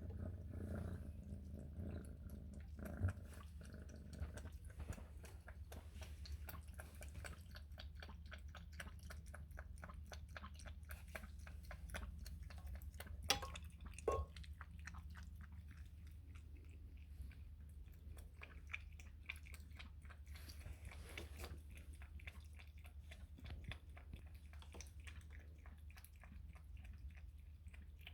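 Kitten lapping milk: a quiet, rapid run of small wet ticks from its tongue, with a few louder clicks about three seconds in and near the middle.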